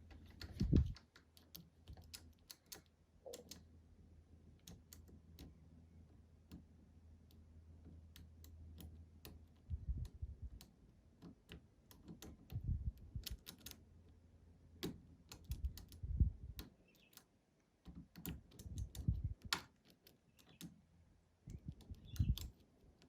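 Lock pick working the pins of a Medeco biaxial camlock: irregular small metallic clicks and ticks, with a few duller knocks from handling the lock.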